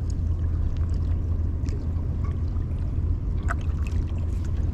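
Water sloshing and gurgling over a steady low rumble, with a few faint ticks.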